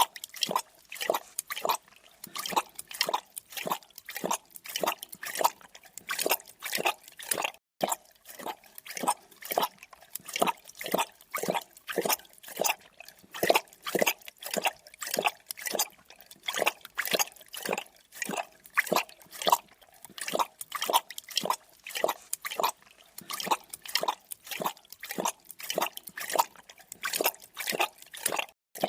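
A creature drinking, lapping liquid in quick, even wet laps at about two to three a second, with a brief break about eight seconds in.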